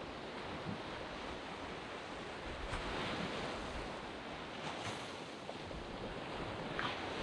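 Sea waves washing up on a sandy beach: a steady surf hiss, swelling with a breaking wash about three seconds in, again near five seconds, and near the end.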